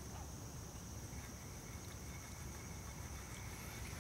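Faint, steady insect chorus: a continuous high trill, over a low rumble.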